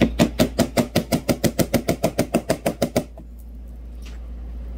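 Thick metallic slime being pressed and worked by hand, making a fast, even run of wet clicks, about eight a second, that stops after about three seconds.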